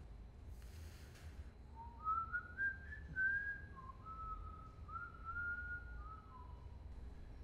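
A person whistling a slow, wavering tune of about a dozen gliding notes, starting about two seconds in, over a low steady room hum. A short hiss comes just before the tune.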